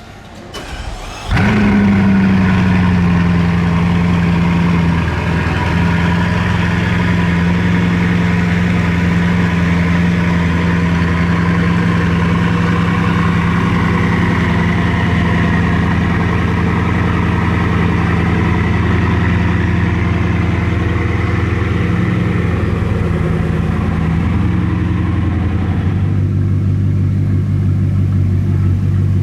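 Bugatti Chiron Sport's quad-turbocharged 8.0-litre W16 engine starting up about a second in, catching suddenly at a fast idle that eases slightly lower within a few seconds and then runs steadily. Near the end the idle steps down to a lower, deeper note.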